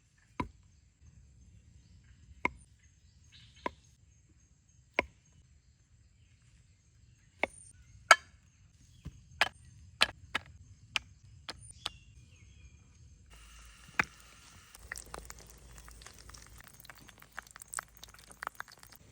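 Sharp, single knocks or taps, about a dozen at uneven intervals and closer together near the middle. About two-thirds of the way in they give way to a scraping or rustling hiss full of small clicks.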